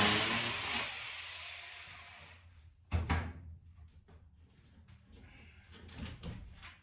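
Mini chainsaw winding down as its motor stops, the noise fading over about two seconds. Then a sharp knock and a few light clicks and taps.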